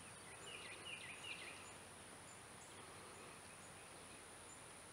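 Faint outdoor ambience: a bird chirping a quick run of short notes between about half a second and a second and a half in, over a steady high-pitched insect drone.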